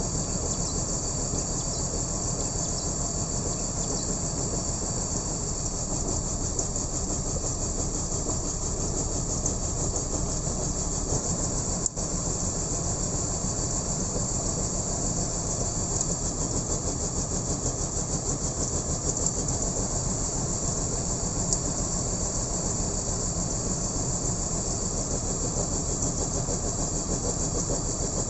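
BMW M54B30 3.0-litre straight-six engine idling steadily with the bad, rough idle of a misfire, which the owner suspects comes from one of the six ignition coils.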